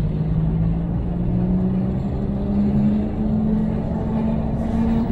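Jeep on snow tracks driving along, heard from inside the cab: the engine runs under a steady low rumble. Its pitch climbs over the first couple of seconds and then holds steady.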